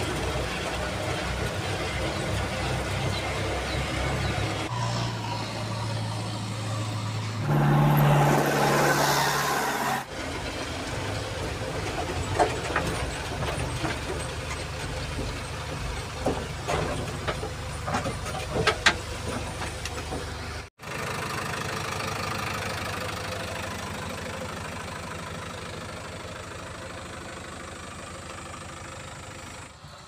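JCB 3DX backhoe loader's diesel engine running, heard from inside the cab, in several clips joined by abrupt cuts. Scattered sharp knocks and clanks come through in the middle part.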